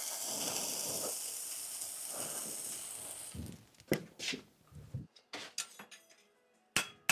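Hot steel horseshoe sizzling against the hoof wall during hot fitting, a steady hiss as it burns in. The hiss fades after about three seconds as the shoe is lifted off, followed by a few light metallic clinks and a sharp strike near the end.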